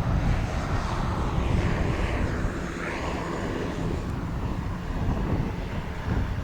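Boeing 787 airliner's jet engines on approach, a steady rush that swells slightly a couple of times, with wind buffeting the microphone underneath.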